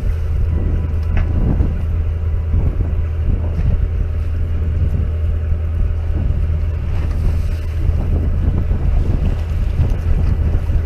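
Fishing boat's engine running steadily with a constant low hum, with wind buffeting the microphone.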